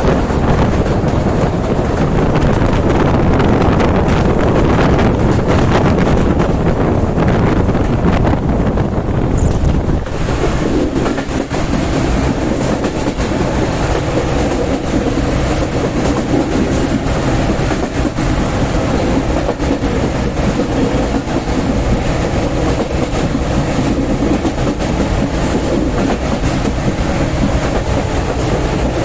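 Passenger train running at speed, heard from on board: a continuous rumble with wheels clattering over the rails. The deep rumble eases about ten seconds in, leaving a lighter, steadier clatter.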